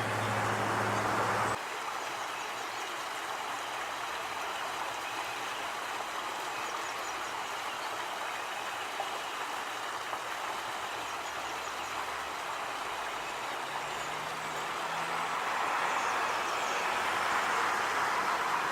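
Steady rush of a small stream waterfall running high and fast after heavy rain. A faint low hum joins in near the end.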